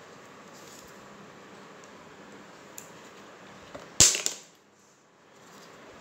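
One sharp knock on the tabletop about four seconds in as a glue bottle and scissors are handled, with a few faint clicks before it over a low steady hiss.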